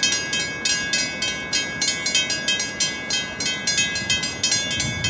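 Mechanical railroad-crossing bells ringing loudly, a quick run of metallic strikes at about four to five a second.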